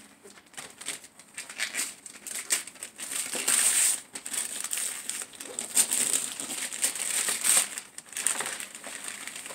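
Wrapping paper being torn and crumpled off a present: an irregular crackly rustling that is loudest around three to four seconds in and again near six to seven seconds.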